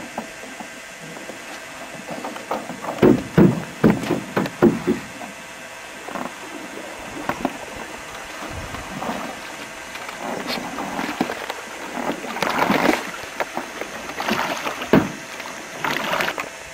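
Canoe paddling on a lake: a quick series of knocks of paddles against a canoe about three to five seconds in, then paddle strokes splashing water in bursts through the second half.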